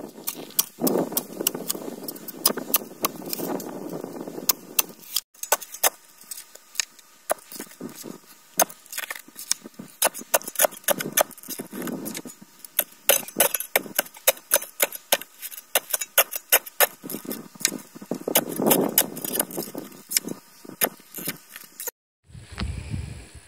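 Clamshell post-hole digger working a hole in hard red clay: many sharp, irregular clinks and knocks as the steel blades are driven in, with stretches of scraping and crunching soil. The sound cuts off about a second before the end.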